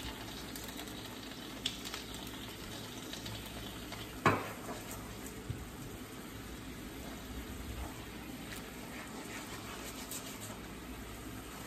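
Pan sauce of chicken broth, brown sugar and soy sauce simmering in a skillet while a silicone spatula stirs through it, with a single sharp knock about four seconds in.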